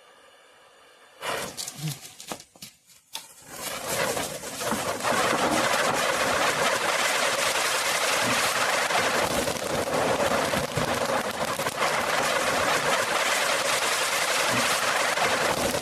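Anar (flower-pot fountain firework) catching about a second in, sputtering in uneven spurts, then spraying with a steady, loud hiss flecked with small crackles.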